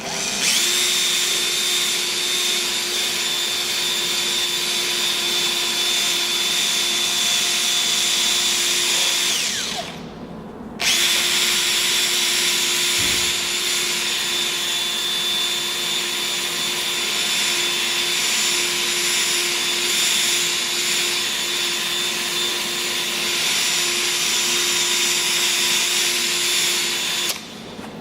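Electric drill spinning a P800-grit 3M sanding disc against a plastic headlamp lens, with a steady whine. It winds down and stops about ten seconds in, then starts again and runs until just before the end.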